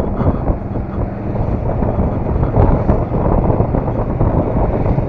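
Wind buffeting the microphone of a moving motorcycle, a steady loud rushing, with a Bajaj Avenger 220 cruiser's engine running underneath.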